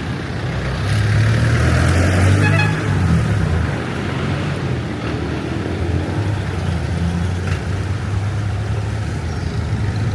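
Street traffic: a motor vehicle's engine rumbling close by, loudest from about one to three seconds in, then a steady traffic drone.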